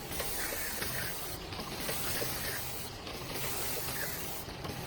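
Automatic bottle-labelling machine running with a steady hiss. The hiss briefly thins in a regular cycle about every one and a half seconds.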